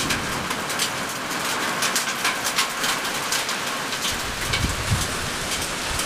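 Heavy rain pouring down: a dense, steady hiss with many sharp spatters of drops landing close by.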